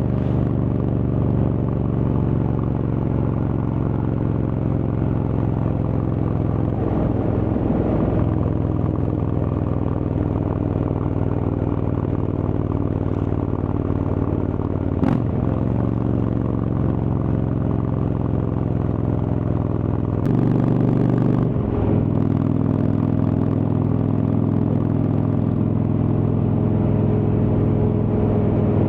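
V-twin engine of an Indian Chieftain motorcycle fitted with a Freedom Performance exhaust, running under way. The engine note holds steady and shifts pitch a few times, about 7, 15 and 20 to 22 seconds in.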